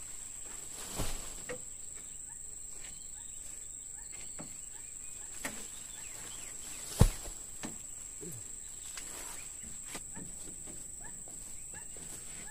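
A steady, high-pitched drone of insects, with scattered knocks and thumps as potted oil palm seedlings are set down on a pickup truck's bed. The loudest thump comes about seven seconds in.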